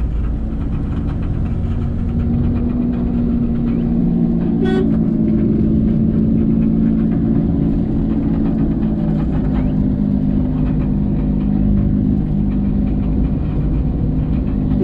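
Car engine running and tyre/road noise heard from inside the cabin while driving, a steady low hum whose pitch shifts slightly a couple of times. A single short sharp click about five seconds in.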